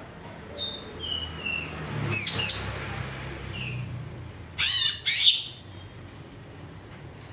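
Green leafbird (cucak ijo) singing: a few clear whistled notes falling in pitch, then loud rapid sweeping calls about two seconds in, and two loud harsh bursts about two-thirds of the way through, followed by a couple of short chips.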